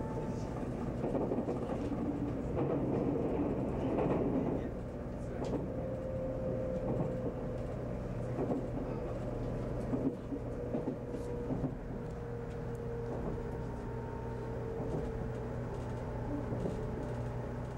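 Cabin running noise of a JR Kyushu 783 series limited express train: a steady low rumble with scattered clicks from the track, and a faint tone that slowly falls in pitch from about six seconds in as the train slows on its approach to the terminus.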